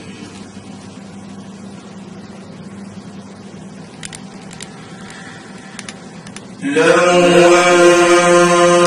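A man's melodic Quran recitation, paused: a quiet steady low hum with a few faint clicks. About two-thirds of the way through, the reciter's voice comes back in loud on a long held note.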